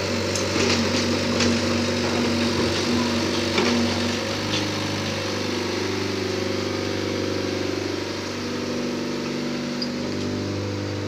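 Caterpillar 308B mini excavator's diesel engine running steadily as the machine tracks down off a trailer, with several clanks in the first four seconds.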